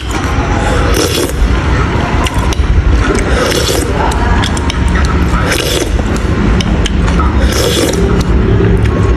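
Close-miked eating sounds from a mukbang meal of soup, noodles and bread: chewing, with a short hissy slurp or scrape about every two seconds.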